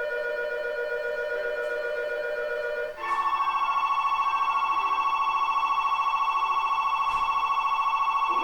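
Electronic station departure bell ringing: a steady electronic tone that steps up about three seconds in to a higher, rapidly trilling ring.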